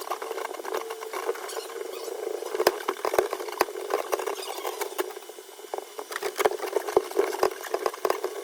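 Irregular clicks, clanks and rattles of tools and steel parts being handled during mount fabrication, over a steady background hum.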